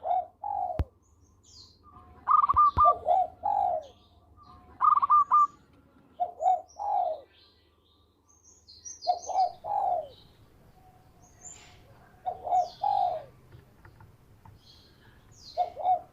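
Zebra dove (perkutut) cooing its song: phrases of quick higher notes followed by lower falling coos, repeated every three to four seconds. Faint high chirps of small birds sound between the phrases.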